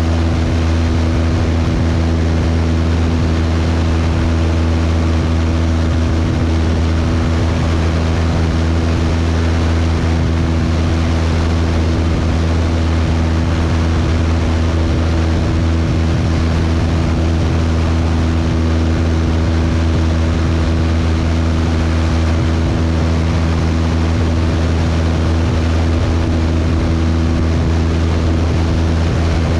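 Cessna 172's piston engine and propeller in flight, a steady, unchanging drone with a strong low hum.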